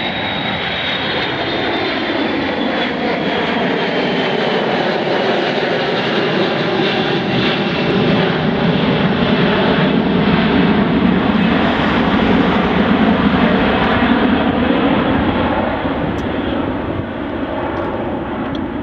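Aircraft engines running, growing louder to a peak about two-thirds of the way through and then fading, with a high whine that glides slowly down in pitch in the first few seconds.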